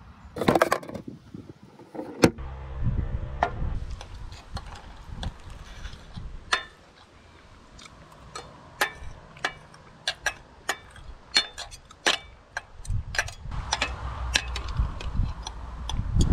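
Steel knife and fork clinking and scraping on a ceramic plate while cutting food: many short, irregular sharp clinks, a couple each second, over a low rumble. A louder knock comes about half a second in.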